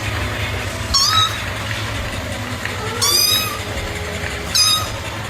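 A domestic cat meowing three times in short, high-pitched calls over a steady low rumble.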